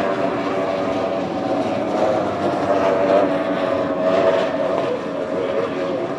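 Offshore racing powerboats' engines running at high speed as several boats pass, a steady pitched drone that swells slightly a few times.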